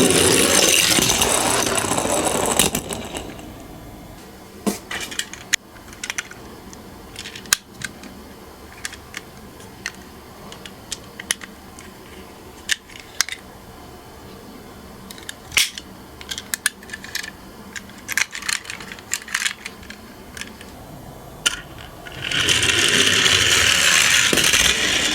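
Toy minicars rolling down a slope track with a rattling rush, twice, each about three seconds long: once at the start and again near the end. In between come scattered light clicks and clinks.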